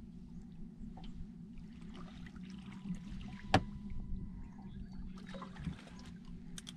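Water splashing and trickling at the side of a small aluminium boat as a hooked fish is drawn up to the surface, over a steady low hum. There is a sharp click about halfway through.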